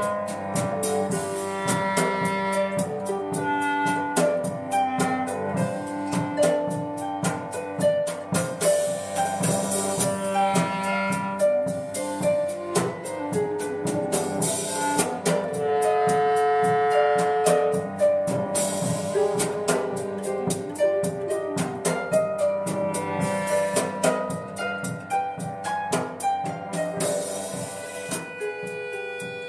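A quartet of cello, harp, clarinet and drum kit playing together in rehearsal: melody notes over a held low note, with steady drum strokes and several cymbal crashes. It grows quieter near the end.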